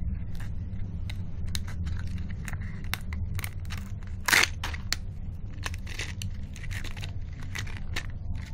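Foil and plastic candy wrappers of a chocolate surprise egg being torn and peeled off by hand: a run of short crinkles, snaps and tearing sounds, with one louder crack about four seconds in.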